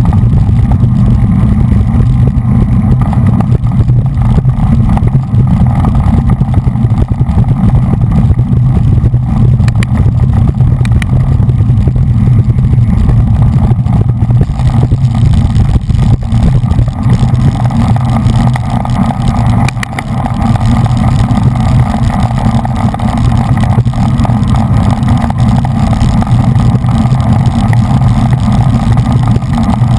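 Steady, loud rumble of wind buffeting a bike-mounted GoPro's microphone at racing speed, mixed with tyre and road noise.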